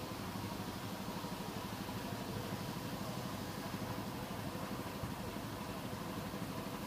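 An engine running steadily at idle: a low, even hum with fast, regular pulsing.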